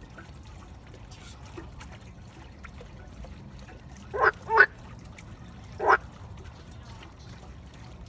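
Frogs croaking at a pond: two short, loud croaks in quick succession a little past four seconds in, and a third near six seconds, over a faint steady background.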